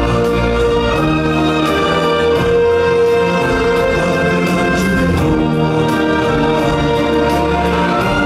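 Orchestral-style music with long held notes and chords.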